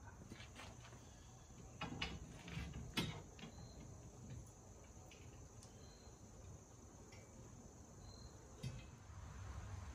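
Faint, scattered clicks and clinks of steel tubing as lawn sweeper frame pieces are handled and fitted together, the sharpest about three seconds in. Short, faint, high chirps come and go in the background.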